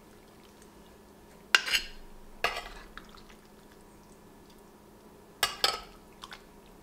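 Metal serving spoon clinking against ceramic serving dish and plate as pasta is scooped out: four sharp clinks spread over several seconds, the last two close together.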